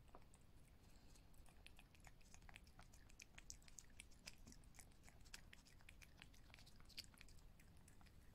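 Calico cat eating a treat from a packet held to her mouth: a faint run of small, irregular mouth clicks from licking and chewing, several a second.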